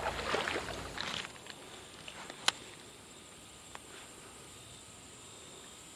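Footsteps crunching and rustling on a gravel and leaf-littered creek bank during the first second or so. Then quiet creekside ambience with a faint steady high tone and one sharp click about two and a half seconds in.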